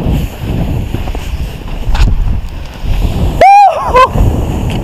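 Wind buffeting the microphone as a tandem skydive lands on sand, then about three and a half seconds in a short, loud whoop from the skydiver, rising and falling in pitch, and a brief second cry just after.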